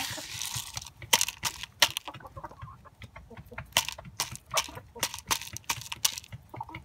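Hen pecking corn from a plastic cup held in the hand: an irregular run of sharp taps as its beak strikes the plastic and the kernels, with a few soft clucks.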